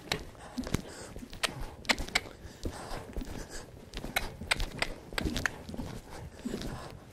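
A horse cantering on the sand footing of an indoor riding arena: its hoofbeats come as a string of irregular clicks and knocks.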